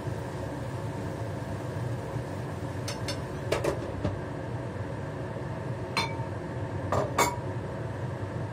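Chopsticks and a glass pan lid clinking against a frying pan as the pan is stirred and covered: a few clinks about three seconds in, then a ringing clink and two more near the end. Under them runs a steady hiss from the lit gas stove and kitchen fan.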